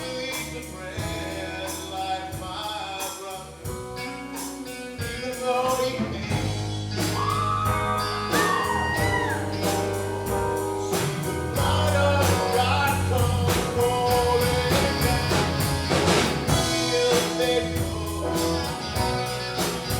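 Live blues-rock band music between sung lines: a steady drum beat and low bass notes under a melodic line that slides up in pitch about seven to nine seconds in.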